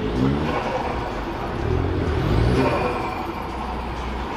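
Ford Focus ST and Fiesta ST hatchbacks driving slowly past, their engines rising in pitch as they pull away, once near the start and again about two seconds in, loudest around halfway.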